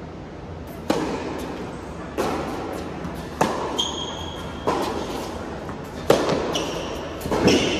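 Tennis rally on an indoor hard court: a sharp racket-on-ball crack about every second and a quarter, with softer ball bounces between, echoing in the hall. Short high squeaks of shoes on the court come twice.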